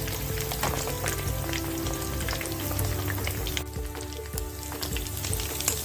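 Sabudana vadas (potato and tapioca pearl patties) shallow-frying in oil in a pan: steady sizzling with many small crackles, dipping briefly a little past the middle.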